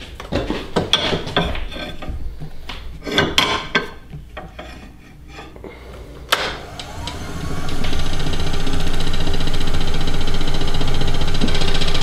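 Hands knocking and rubbing on a thin green walnut bowl on a stopped wood lathe, then about six seconds in the lathe is switched on with a click: its motor whine rises in pitch as the spindle spins up, then runs steadily and loudly.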